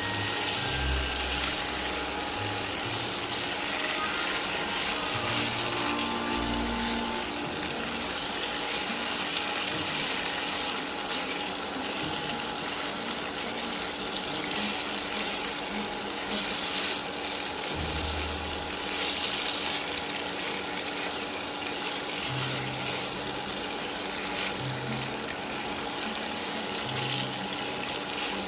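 Soft background music with low bass notes over a steady hiss.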